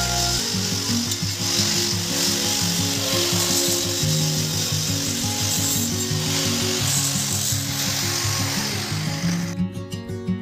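Hand-held angle grinder running against the edge of a stone slab, a steady grinding hiss that cuts off suddenly about nine and a half seconds in. Background music plays underneath and carries on alone at the end.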